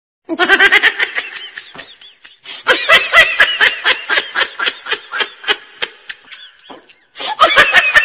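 Funny-laugh sound effect: a person laughing in quick ha-ha pulses, in three bouts, each starting loud and trailing off.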